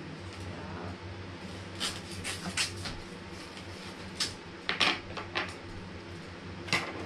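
Paper handled as a greeting-card envelope is opened and the card pulled out: short, scattered rustles and crackles over a faint steady hum.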